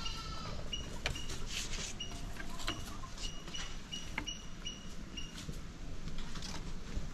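A young goat moving on a wooden slatted floor and pulling at leaves: a few sharp hoof knocks on the slats and some leaf rustling. Behind it, a short high chirp repeats about twice a second.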